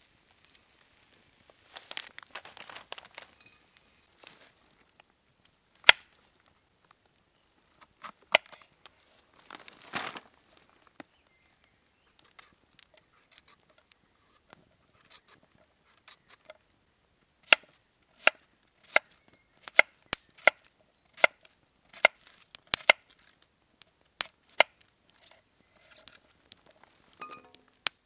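Sharp knocks or taps: a few scattered strikes, then a steady run of about a dozen, roughly one every two-thirds of a second, in the second half.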